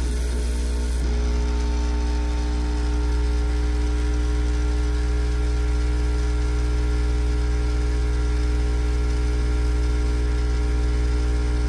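Hot-air reflow station blowing on a circuit board, its blower giving a steady low hum with a faint whine. The pitch pattern shifts slightly about a second in. The heat is remelting the solder joints to close a cracked joint.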